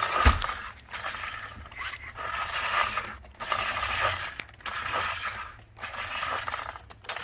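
The recoil pull starter of a 29cc two-stroke engine on a 1/5-scale RC truck, pulled over and over about once a second, a rasping mechanical sound on each pull, and the engine does not fire. It doesn't sound right.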